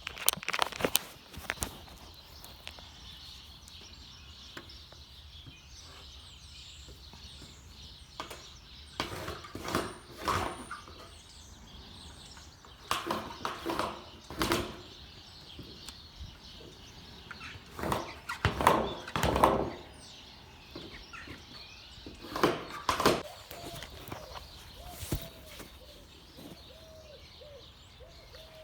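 Birds chirping in the background, broken by six short bursts of scraping and handling noise, each a second or two long.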